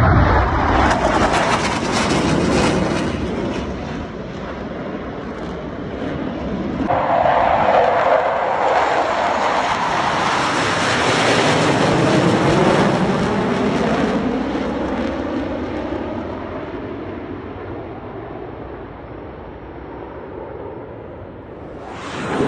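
Jet noise from a formation of U.S. Navy F/A-18 Super Hornets flying overhead. It is loud at first, eases off, then swells again about seven seconds in with a sweeping, falling tone as the jets pass, and fades slowly over the last several seconds.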